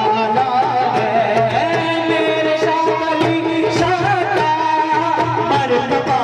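Live devotional naat music played over loudspeakers. A singer's wavering melodic line runs over steady held instrument tones and a hand-drum rhythm.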